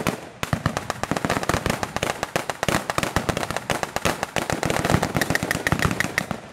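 Rapid, continuous blank gunfire from WWII machine guns and rifles, many sharp shots a second overlapping with one another.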